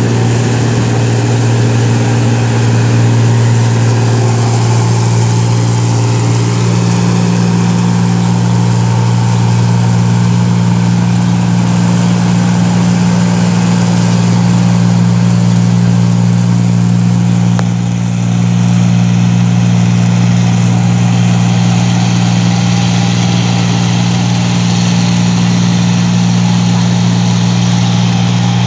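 Engine of a rice harvesting machine running steadily at a constant speed, with a brief dip about eighteen seconds in.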